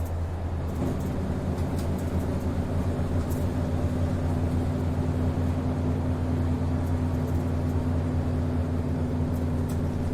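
Onboard sound of a city route bus: its diesel engine running at a steady pitch with a low drone, plus a few brief light rattles.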